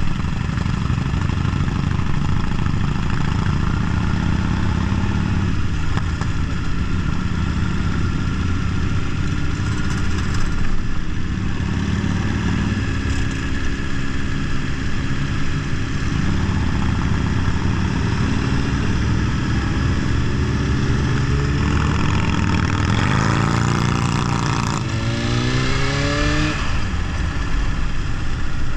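Motorcycle engines running on the move, a steady low drone. About three-quarters of the way through, the engine pitch rises in several quick sweeps as a motorcycle accelerates.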